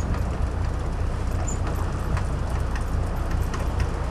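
Engines of a 58-foot sportfishing boat running steadily at trolling speed, a constant low rumble mixed with wind and water noise.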